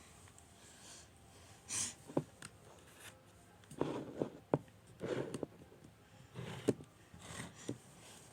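Scattered light knocks and clicks with short rustling: slime containers being handled, picked up and set down.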